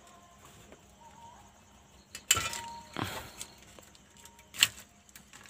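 Hand-handling noise from a CRT TV's base board and its wiring: a few short clicks and rattles about two and three seconds in, and one sharp click near the end, the loudest.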